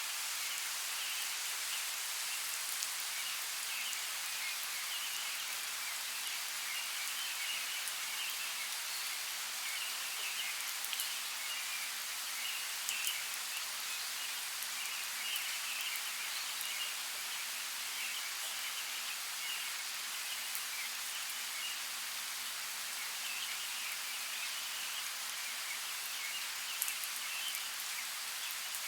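Steady light rain, an even hiss with scattered drops ticking on leaves and surfaces.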